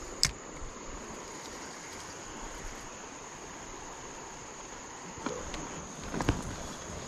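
Insects calling in one steady high-pitched buzz. A sharp click comes just after the start, and a few soft knocks near the end as hands grip the inflatable boat's hull.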